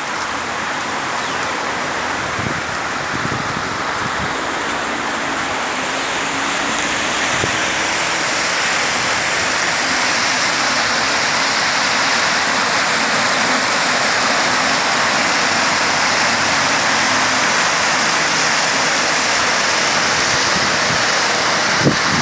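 Rushing water, a stream or waterfall, making a steady, even rush that grows gradually louder.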